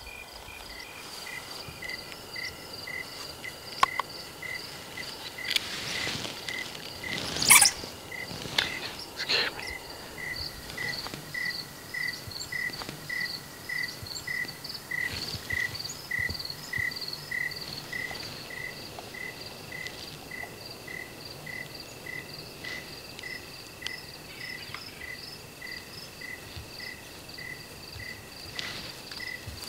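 Chirping insects, with two evenly repeating chirp trains at different pitches, the higher one faster, going steadily throughout. A few brief louder noises come between about four and ten seconds in, the loudest about seven and a half seconds in.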